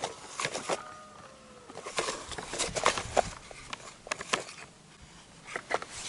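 Hard plastic toy dump truck being handled on sandy ground: scattered clicks and knocks of plastic parts as its tipper bed is lowered and the truck is moved.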